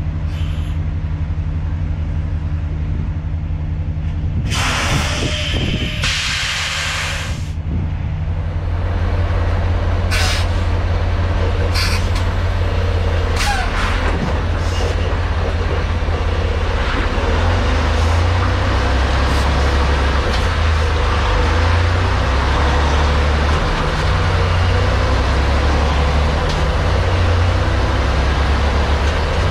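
Semi-truck diesel engine running, with two loud hisses of air about five and seven seconds in. A few sharp clicks follow, then the engine runs louder, its pitch stepping up and down as the truck drives.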